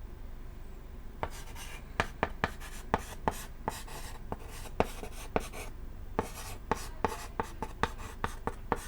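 Chalk writing on a chalkboard: irregular sharp taps and short scratchy strokes, starting about a second in.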